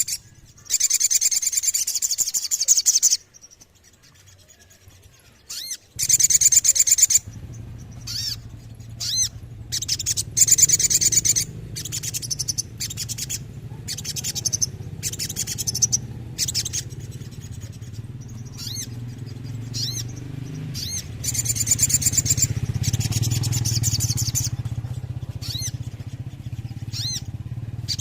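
Sogon (sogok ontong), a small Indonesian bird of the sunbird family, singing in bursts of fast, high-pitched trills and sharp repeated notes, with short pauses between phrases. A steady low hum runs underneath from a few seconds in.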